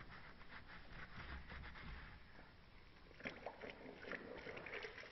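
Sponge rubbing back and forth over embossed metal to clean off oxidation: a quick run of rubbing strokes that stops about two seconds in, followed by a few faint clicks.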